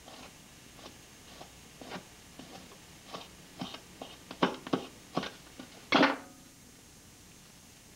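Kitchen knife knocking and clicking against a wooden cutting board as muskrat meat is cut up. The knocks are irregular, louder and closer together past the middle, and the loudest is a longer knock about three-quarters of the way through.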